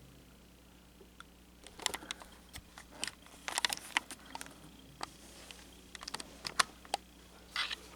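Hands handling a plastic table fan: irregular light clicks, taps and rustles, starting a couple of seconds in.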